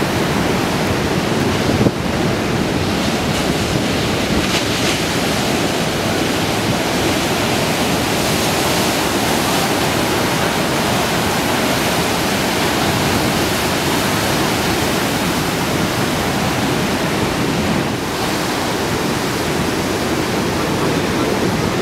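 High surf of 8 to 12 foot waves breaking in a steady, loud rush of whitewater, with a brief click about two seconds in.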